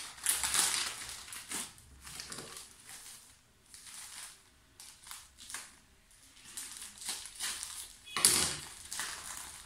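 Plastic mailer packets crinkling and rustling as they are handled and opened, in irregular bursts, with the loudest burst about eight seconds in as a packet is cut open.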